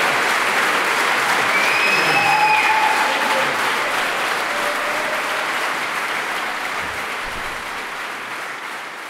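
A crowd applauding, a dense steady clapping that slowly fades out over the second half.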